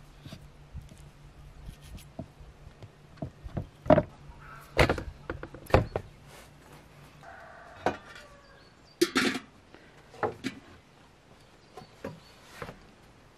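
A heavy kitchen knife knocking on a wooden chopping board as beef short ribs are trimmed, and the meat and a metal cooking pot and lid being handled. The result is a series of separate sharp knocks and clunks about a second apart.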